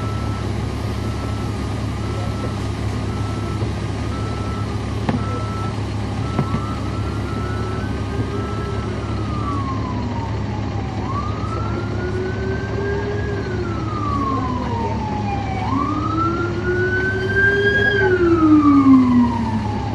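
The Caterpillar C13 diesel of a 2009 NABI 40-SFW transit bus drones steadily, heard from on board. Over it an emergency vehicle's siren wails in long, slow rising-and-falling sweeps and grows louder near the end. For the first several seconds a short beep repeats about every two-thirds of a second, then stops.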